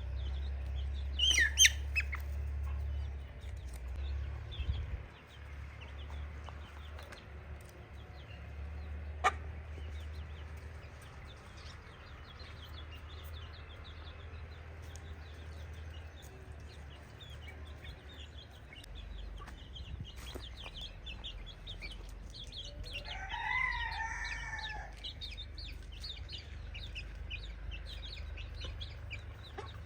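A flock of chickens clucking and calling, with one longer drawn-out call about 23 seconds in, over a steady low rumble.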